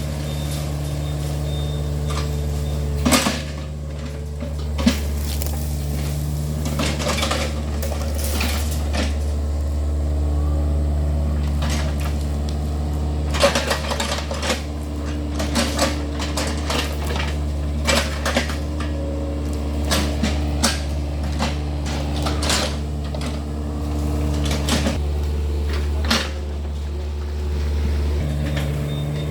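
Yanmar excavator's diesel engine running steadily, its pitch shifting a little with load, while the machine digs, with repeated short metallic clanks and knocks from the bucket and arm, the loudest about three, five and thirteen seconds in.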